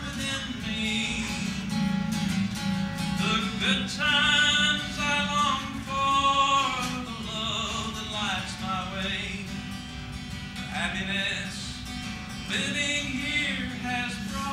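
A man singing a song while accompanying himself on an acoustic guitar.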